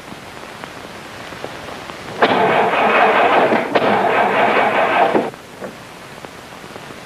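Car starter motor cranking for about three seconds, with a brief break midway, without the engine catching: the car won't start.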